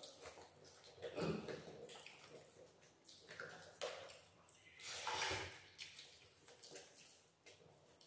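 Wet, squishy eating sounds: fingers mixing rice and curry on a steel plate, and chewing, in scattered short bursts, the loudest about five seconds in.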